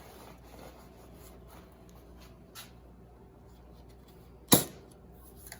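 Faint clicks and handling of a Daisy 105 Buck lever-action BB gun's metal parts, then one loud, sharp snap about four and a half seconds in.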